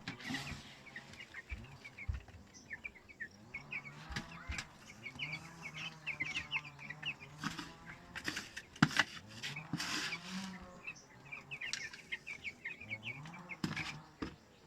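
A flock of young broiler chicks peeping, with many short high chirps in quick runs, and scattered sharp knocks. A low, wavering hum runs underneath.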